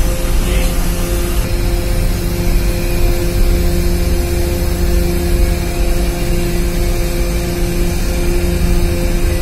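Steady drone of a docked car ferry's onboard machinery: a deep rumble with a few held tones running above it.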